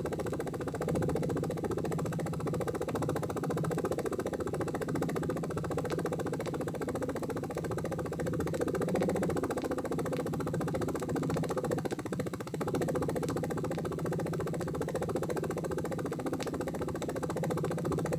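Helicopter sound effect opening the track: rotor chopping in fast, even pulses over a steady engine drone, briefly dipping about twelve seconds in.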